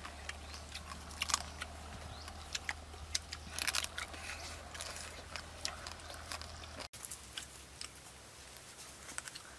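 People biting and chewing pieces of grilled pig head at close range: a scatter of sharp, crackly clicks and smacks, with a few denser crunchy bites.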